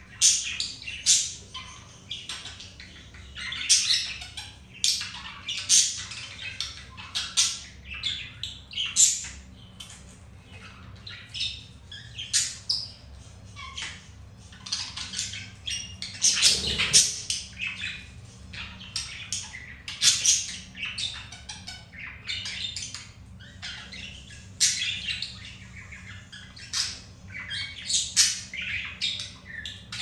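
Budgerigars chattering: a run of short, high squawks and chirps with brief gaps between them.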